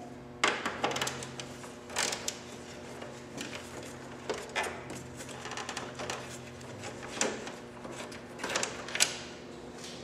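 Irregular metallic clicks and knocks of a 6 mm Allen socket wrench working the bolts out of a motorcycle's dash switch panel, with the tool knocking against the panel, over a faint steady hum.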